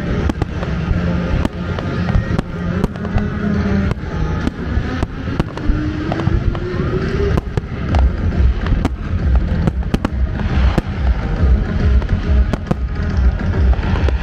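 Aerial fireworks exploding: many sharp bangs and crackles, irregular and often several a second, over a deep rumble. Music plays alongside.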